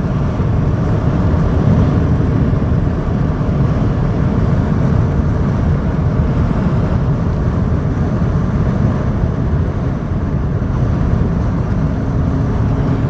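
Car interior road noise while driving at steady speed: a continuous low rumble of tyres and engine heard from inside the cabin.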